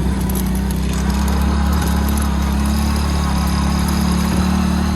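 Motorcycle engine running at a steady speed while riding, with a steady low hum.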